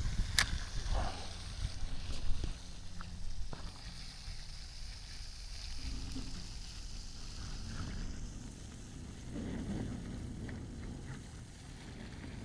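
Uneven low rumble of wind buffeting the microphone, with a sharp click about half a second in and a few lighter ticks.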